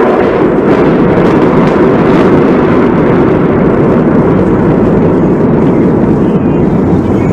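Loud, steady rumbling roar that begins with a sudden onset just before and continues unbroken, the aftermath of an explosion overloading the recording.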